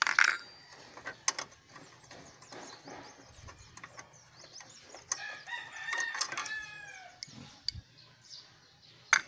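A rooster crows once, about five seconds in, for around two seconds, with the pitch falling at the end. Scattered sharp clicks and knocks from hands working plastic fittings on the engine's fuel filter housing come and go, the loudest one at the very start.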